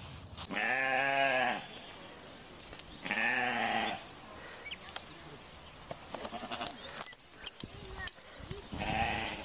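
Chamois bleating: three nasal, goat-like calls, each about a second long with a rising-then-falling pitch, about half a second in, three seconds in, and again at the very end.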